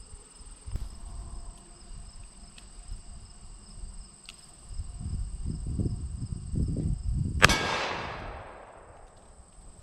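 One shot from a Colt Viper .357 Magnum revolver about seven and a half seconds in: a sharp crack with a long echoing tail that fades over more than a second. Crickets chirp steadily underneath.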